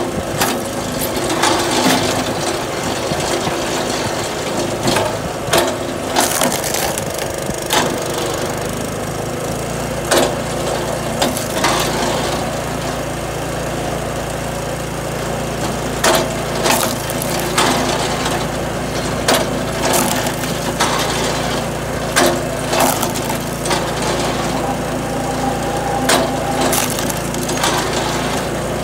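A log splitter's small engine running steadily, with irregular sharp cracks and knocks as firewood rounds are split and the split pieces are handled on the splitter table.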